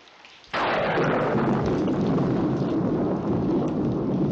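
A sudden thunderclap about half a second in, rolling on as a loud rumble, with rain.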